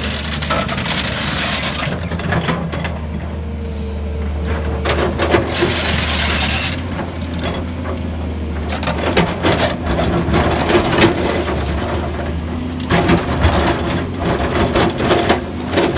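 Volvo EC210B LC crawler excavator's diesel engine running steadily under load as the bucket digs into a face of broken shale and rock. From about nine seconds in, stones knock and clatter as the bucket scrapes and spills loose rock.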